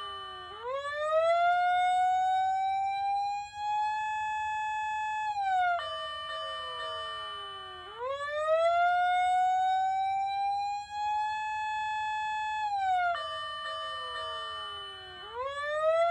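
Patlite SAP-500FBVZ electronic siren amplifier sounding a slow wailing siren: the pitch climbs over about four seconds, holds briefly, then falls, in a cycle of about seven seconds. The cycle repeats twice, and a cluster of steady tones sounds over each fall.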